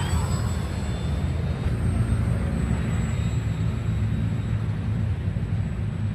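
RC model airplane flying, its motor a faint, steady high whine under heavy wind rumble on the microphone.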